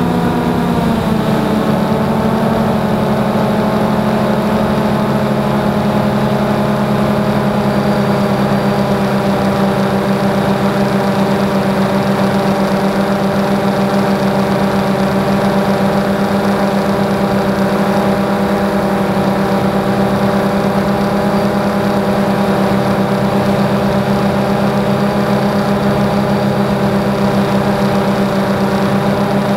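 DJI Phantom 2 quadcopter's brushless motors and propellers humming steadily in flight, heard close up from the camera on the drone. The pitch dips a little about a second in, then holds.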